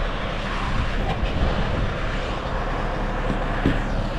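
Steady drone of a Scania road train's diesel engine running while it stands, with a couple of faint knocks as a grain trailer's tarp is pulled down by hand.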